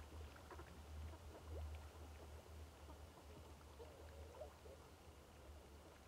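Very faint pond-side ambience from a feeding flock of swans, coots and ducks: a few soft scattered calls over a steady low hum.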